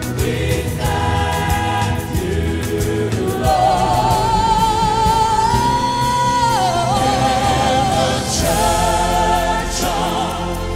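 Live gospel worship singing by a small vocal group with instrumental backing. About a third of the way in, a voice holds one long note with vibrato for around three seconds, then steps down in pitch and carries on.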